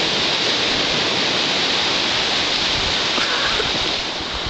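Steady rushing noise of ocean surf and wind on the microphone, even throughout and easing slightly near the end.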